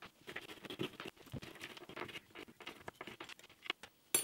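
Grimy steel nuts, bolts and spring washers being scrubbed on a wooden workbench to knock off the worst of the grime after degreasing: irregular scratching and rubbing with small metal clicks, ending in one sharp click.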